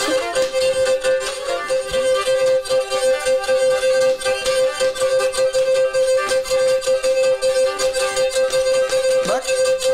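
Black Sea kemençe, a small bowed fiddle, playing a fast folk dance tune over a steady held drone note.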